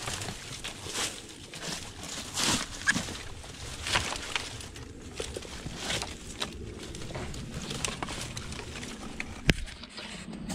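Dry branches and twigs rustling and crackling as someone pushes through dense dead brush on foot, with a sharp snap near the end.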